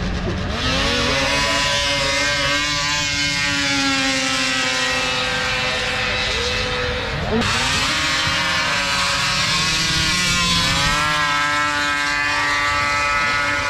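High-horsepower racing snowmobiles at full throttle on a drag strip, several engine notes at once, their pitch climbing and sagging. About seven seconds in the engine notes drop sharply and climb again.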